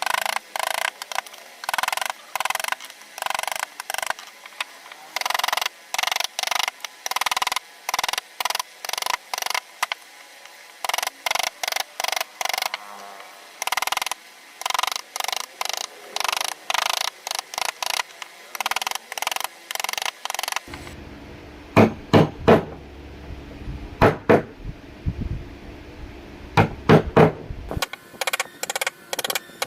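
Mallet striking a carving chisel into sheesham wood in quick, steady taps, two to three a second. In the middle come a few heavier, deeper blows over a low rumble before the quick tapping resumes.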